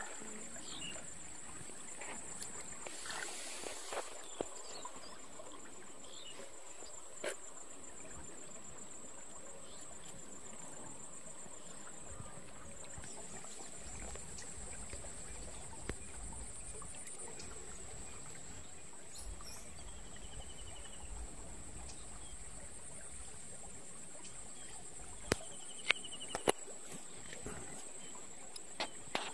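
Insects chirring: a steady, high-pitched drone. A few sharp clicks come near the end.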